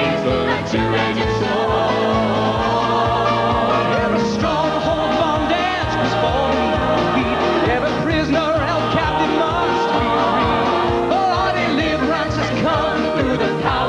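Country-gospel band music with a steady beat and a wavering melody line, without clear sung words.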